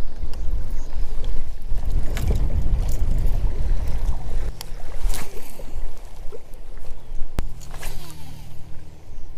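Wind buffeting the microphone and water lapping against a kayak's hull, with a few sharp clicks.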